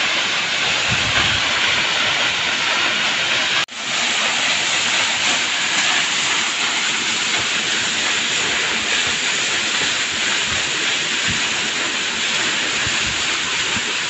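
Waterfall pouring onto rocks close by: a loud, steady rushing hiss of falling water, with a brief dropout about four seconds in.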